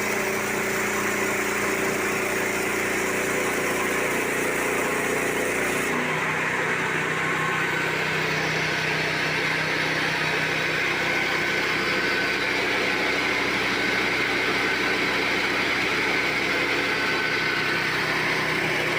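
Mobile sawmill's engine running steadily; its note changes abruptly about six seconds in and then holds steady.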